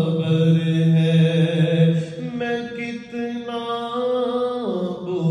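A man's unaccompanied voice chanting an Urdu devotional supplication (munajat), in long held notes that glide down between phrases.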